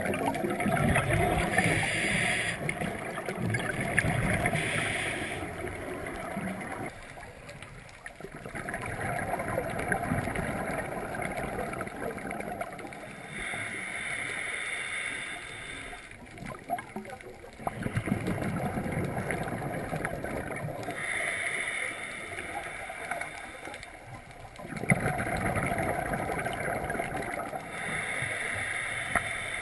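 Scuba regulator breathing heard underwater: a slow repeating cycle of hissing inhalations through the demand valve, each followed by a rumbling, gurgling burst of exhaled bubbles, several breaths in turn.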